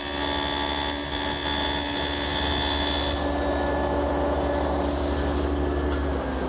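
Table saw running with a stacked dado blade, cutting a tenon on the end of a cypress brace. The cutting noise eases about three seconds in, leaving the saw motor and blade running.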